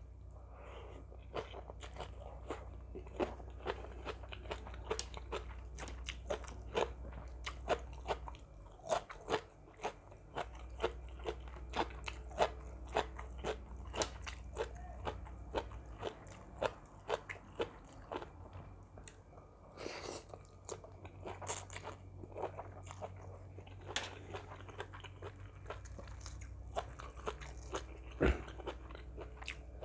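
A person chewing crunchy food close to the microphone: a steady run of crisp crunching bites and chews, a few each second.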